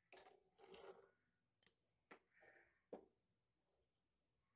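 Faint, sparse clicks and soft scrapes of a spoon against a pan while a cooking milk mixture is stirred, about four clicks in all. The sound cuts out to silence about three seconds in.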